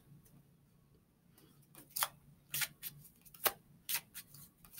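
Oracle cards being handled: a string of short, sharp card snaps at irregular intervals, starting about two seconds in after a near-quiet opening.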